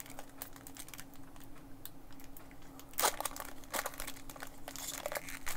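Crinkling and rustling of Pokémon card pack wrappers being handled, with scattered small clicks and a louder crackle about three seconds in and again near the end. A faint steady hum runs underneath.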